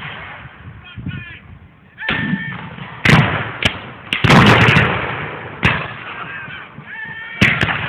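Reenactors' black-powder muskets firing blanks in scattered shots: about six sharp cracks from three seconds in, the heaviest about four seconds in with a longer blast after it.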